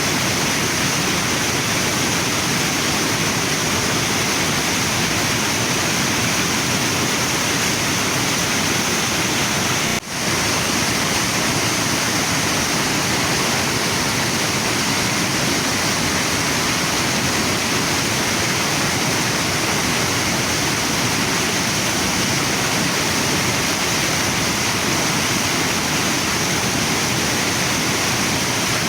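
Waterfall and river water pouring steadily, a constant even rush, with a momentary dip in level about ten seconds in.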